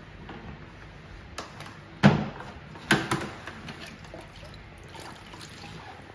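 A plastic filling tube and funnel being handled: a few sharp knocks and lighter clicks, the loudest about two seconds in and a second one just before three seconds.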